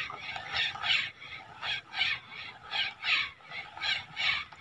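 Spinning reel being cranked to retrieve a cast lure, a rhythmic whirring that comes about three times a second with each turn of the handle.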